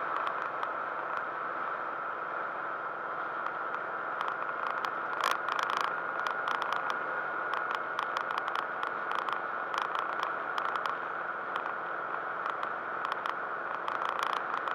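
Road and engine noise inside a car cruising at highway speed, picked up by a dashcam: a steady drone with a thin whine running through it and frequent small rattles and clicks.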